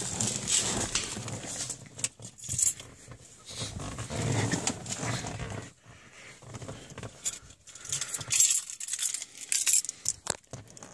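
Car keys jangling, with scattered clicks and light knocks of handling inside a car.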